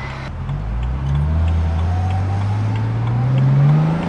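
BMW N54 twin-turbo inline-six in an E92 335i accelerating, heard from inside the cabin: the engine note climbs slowly and steadily in pitch from low revs, starting about a quarter second in.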